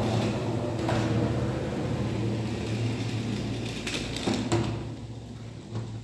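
Motorised treadmill running, its motor and belt giving a steady hum, with a few knocks about a second in and around four seconds in. The hum gets quieter toward the end.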